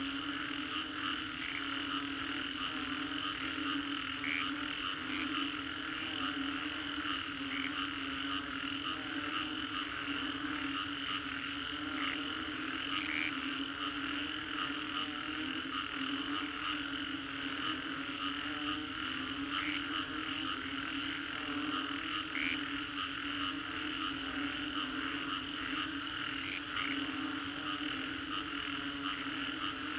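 Dense chorus of many frogs calling steadily after a rainstorm, with short, sharper single calls standing out every few seconds.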